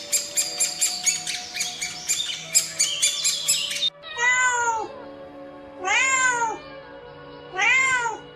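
A domestic cat meowing three times, each meow rising then falling in pitch, over background music. The first half holds only the music, with a quick, busy rhythm.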